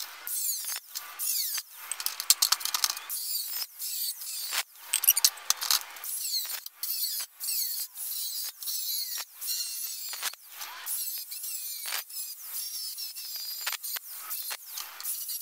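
Angle grinder with a thin cut-off wheel cutting relief slots into a 16-gauge sheet steel strip. The sound is mostly high-pitched and cuts in and out many times in quick succession.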